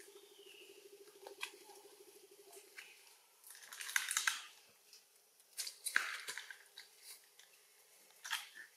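Crackling rustles and snaps of leaves and twigs as a long-tailed macaque shifts about in a tree. The bursts are loudest about four and six seconds in, with a shorter one near the end. A faint low buzz runs in the first few seconds.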